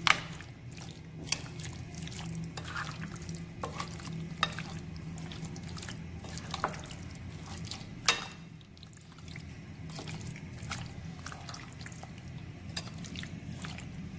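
Metal spoon stirring raw chicken pieces through a thick yogurt-and-spice marinade in a glass bowl: wet squelching, with a few sharp clicks of the spoon against the glass, over a steady low hum.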